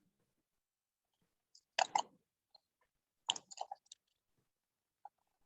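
Plastic Skewb puzzle being turned, clicking in two short bursts about two seconds and three and a half seconds in.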